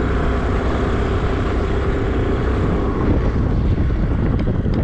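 A motorbike being ridden: a steady rumble of engine and wind on the microphone, with a faint steady engine hum above it.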